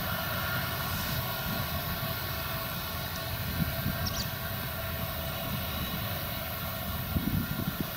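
Claas Lexion 760 combine harvester running at work while threshing rapeseed: a steady engine and machinery drone with a whine of many tones. An uneven low rumble underneath grows stronger near the end.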